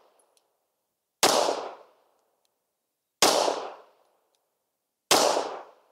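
Three 9mm pistol shots about two seconds apart from a Sig Sauer P320 X-Five firing Winchester Super Suppressed 147-grain full metal jacket rounds. Each shot is a sharp crack that fades out in under a second.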